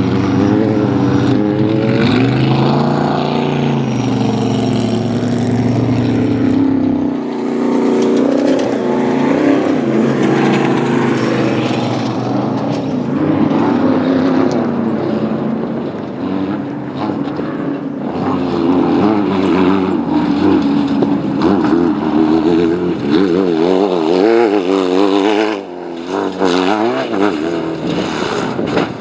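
Off-road race vehicles' engines running hard at high revs, their pitch wavering up and down continuously. A deeper, lower engine drone drops out about a quarter of the way in.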